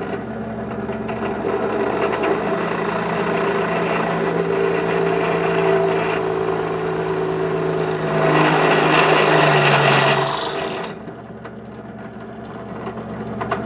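Craftsman 1/3 HP benchtop drill press running with a steady motor hum while a carbide bit drills through half-inch galvanized steel pipe. The cutting grows louder and rougher about eight seconds in, then drops away about eleven seconds in, leaving the motor humming on its own.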